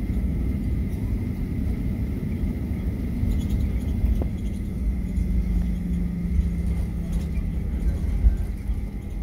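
Steady low rumble inside the cabin of a Boeing 737-900ER taxiing: its CFM56 engines at taxi power and the wheels on the taxiway, with a faint high steady whine. A low hum swells in about five seconds in and fades a few seconds later.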